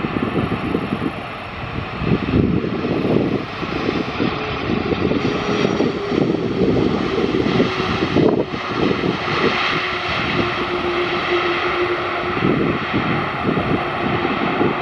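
Boeing 747-400's four turbofan engines running loud on the runway during its landing roll, a steady jet rumble. Partway through, a hum in it drops a little in pitch as the jumbo passes.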